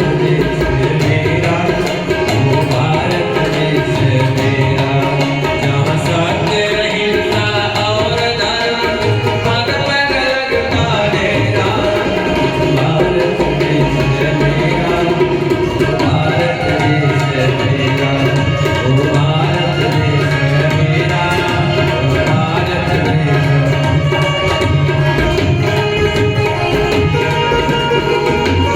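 Indian music with tabla drumming and melodic instruments playing continuously.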